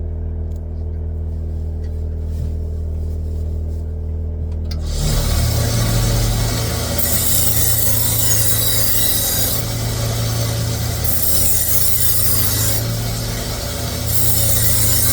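A powered sharpener's motor starts about five seconds in over a steady low hum, and a Shun chef's knife is then drawn against the abrasive in three passes, each a rasping hiss of about two seconds.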